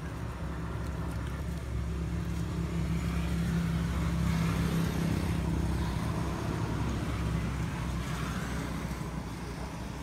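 A motor vehicle engine passing, a steady low hum that swells to its loudest about halfway through and then fades away.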